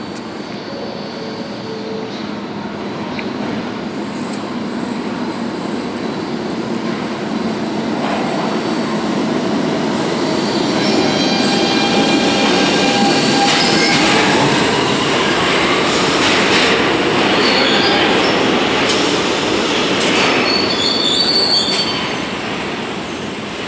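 New York City subway N train pulling into the station. The rumble of wheels and motors builds from about eight seconds in and stays loud as the cars pass along the platform. High wheel squeals rise and cut in near the end as it slows.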